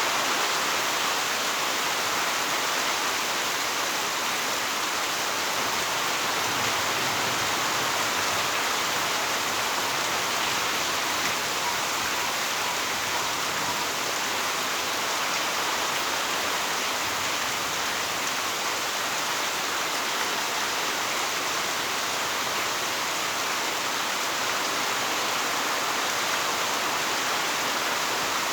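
Heavy rain falling steadily, an even unbroken hiss of downpour with no single drops or gusts standing out.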